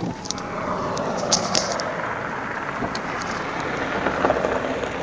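A fire truck driving past on a dirt road, heard as a steady rushing noise that swells slightly about four seconds in, with a few sharp clicks near the start.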